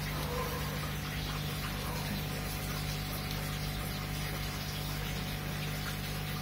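Steady hum of an aquarium pump with the even hiss of moving water.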